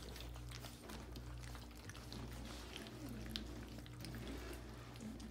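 Several puppies lapping and slurping gruel from a metal feeding pan: many quick wet clicks and smacks, over a steady low hum.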